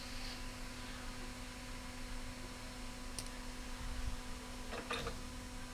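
Steady electrical hum from repair-bench equipment, with a few faint clicks about three seconds in and again near five seconds.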